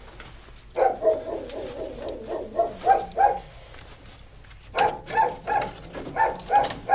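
A dog barking in two runs of quick barks, about three a second, with a pause of about a second and a half between them.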